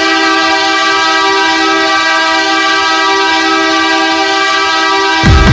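Saint John Sea Dogs' hockey goal horn sounding one long, loud, steady chord of two low tones. It cuts off about five seconds in as electronic music with a heavy beat starts.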